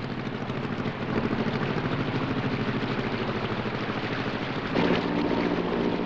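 Yacht engine running steadily with a fast, even beat as the boat motors along. About three-quarters of the way through, a louder engine sound with a different pitch takes over.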